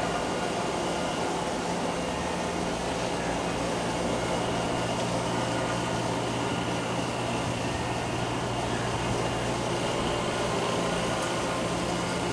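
Steady hum and whir of indoor machinery, with an even low electrical drone underneath.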